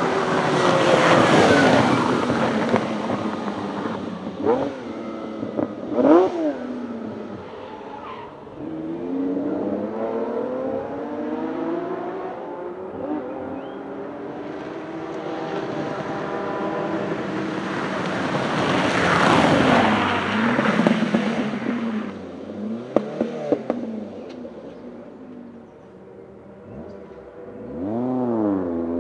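Historic racing cars going past one after another at speed, their engines revving hard, the pitch of each sweeping up and falling away as it passes. A few sharp cracks come out of the engine noise, and near the end an engine rises in pitch again as a car accelerates away.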